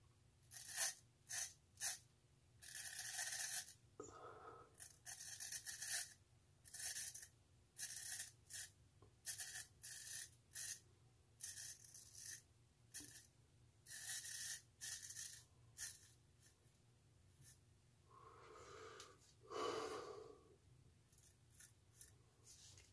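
Straight razor scraping through lathered stubble on the cheek and sideburn: a run of short, crisp rasping strokes, about one or two a second, with brief pauses between groups.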